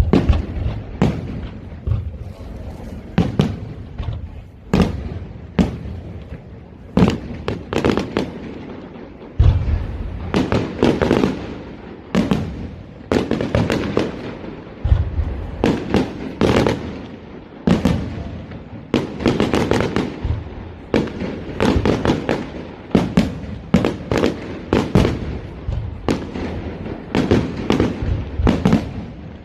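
Fireworks display: a rapid, continuous barrage of shell bursts, sharp bangs and crackling several times a second, with deep booms among them.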